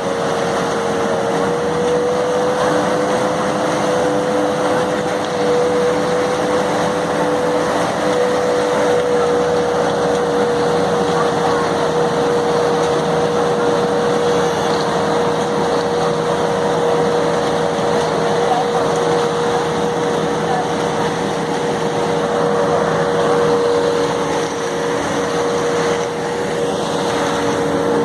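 Engine of construction machinery running steadily at constant speed, a continuous hum with a level, unchanging pitch over a rough mechanical noise.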